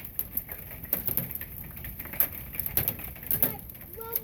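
Hailstones, some as big as golf balls, pelting down: a steady hiss broken by many irregular sharp hits, the loudest a few at a time past the middle.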